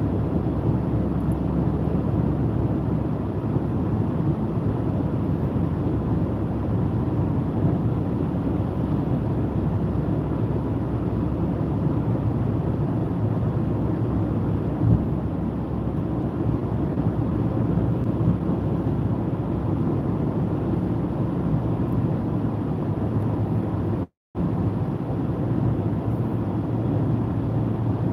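Steady road and tyre noise with engine hum inside a car cruising at motorway speed. The sound cuts out completely for a moment near the end.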